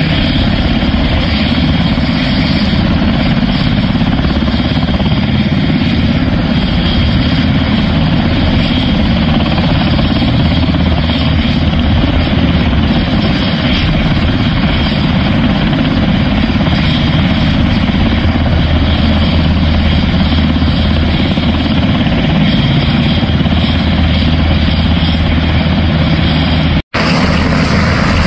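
UH-60 Black Hawk helicopters' main rotors and twin turboshaft engines running loud and steady, with a deep rotor drone under a broad whine. The sound drops out for an instant near the end, then comes back.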